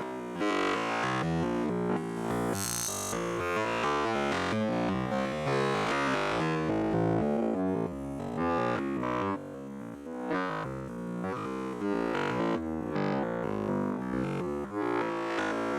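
Background music of keyboard or electric-piano notes.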